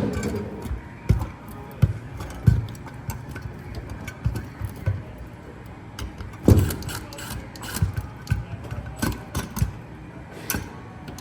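Irregular clicks, taps and knocks of hand tools and hardware being handled during fire alarm wiring work, with a heavier knock about six and a half seconds in.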